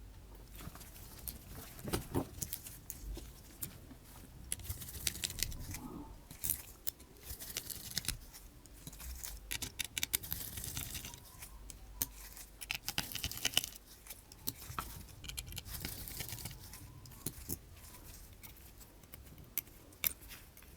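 Small hand tools and phone parts clicking, tapping and lightly scraping as a smartphone is taken apart, in irregular quiet ticks with a few short rustling scrapes.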